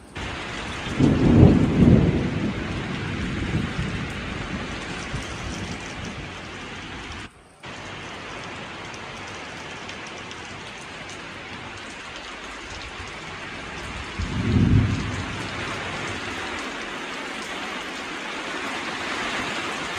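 Heavy tropical rain falling steadily throughout, with two rolls of thunder: a loud one starting about a second in and rumbling for a couple of seconds, and a shorter one about three-quarters of the way through. The sound cuts out briefly once, about a third of the way in.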